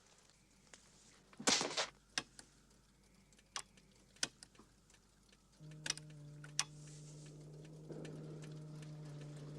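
Scattered mechanical clicks and knocks, the loudest a short rattle about one and a half seconds in, then a steady electrical hum that comes on about five and a half seconds in and keeps going.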